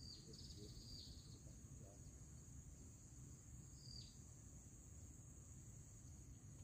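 Faint, steady high-pitched drone of insects, likely crickets, with a few short high chirps that drop in pitch near the start and again about four seconds in.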